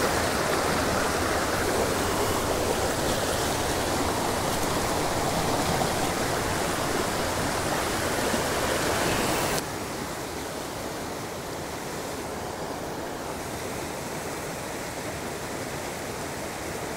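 Small mountain stream rushing over rocks and a little cascade, a steady hiss of moving water that drops suddenly in level about ten seconds in.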